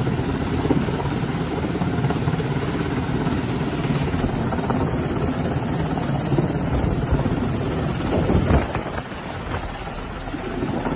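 MH-60 Jayhawk helicopter hovering for a hoist, a steady rotor and turbine drone with the rush of its rotor wash. It swells briefly about eight seconds in, then eases a little.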